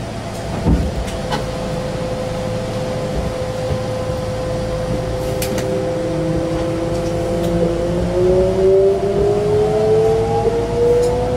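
Kintetsu electric train's traction motors whining as it pulls away, heard inside the car. A steady tone gives way about halfway through to several tones rising in pitch together as the train gathers speed. There is a single thump about a second in.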